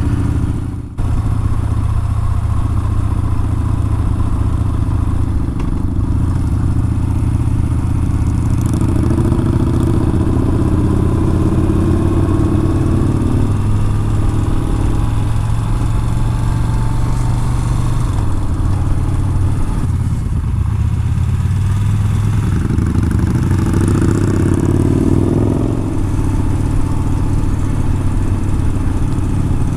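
Yamaha Bolt XV950R's air-cooled V-twin engine running under way, its engine speed rising and falling a few times, with a brief break about a second in.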